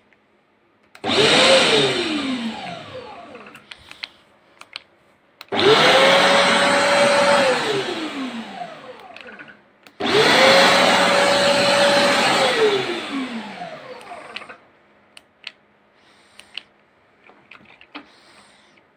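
Vacuum motor switched on three times, a few seconds apart. Each time it whines up to speed, runs for a second or two, then winds down in a falling whine after it is switched off.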